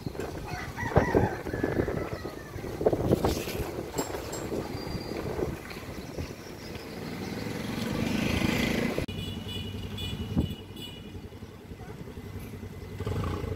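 Roadside traffic noise, with motor vehicles and motorcycles passing. One grows louder around eight seconds in, and the sound changes abruptly about nine seconds in.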